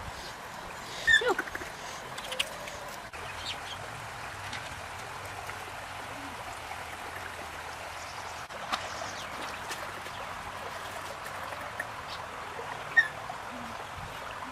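Steady trickle of a shallow stream running over stones, with a few light clicks. A short animal call about a second in and a brief high chirp near the end.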